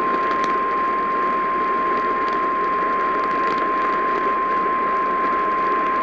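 Emergency Alert System attention tone: a single steady pitch just above 1 kHz, received over an AM broadcast with hiss and light static crackle under it. The tone cuts off at the end, just before the warning voice begins.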